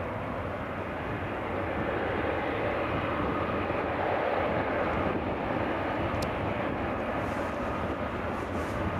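Boeing 777-300ER's GE90 turbofan engines running at taxi power as the airliner taxies and turns: a steady jet noise that grows a little louder a few seconds in. A brief click near the two-thirds mark.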